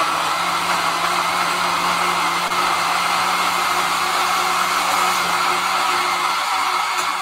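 Countertop blender running steadily at high speed, chopping broccoli into a thick green juice.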